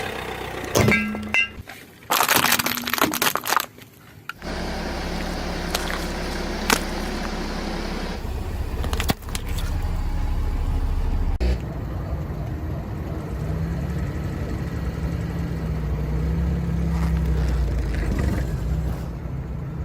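Car running, with sharp cracks and crunches of lamps breaking under its wheels in the first few seconds, then a steady low engine and tyre rumble with an occasional single snap.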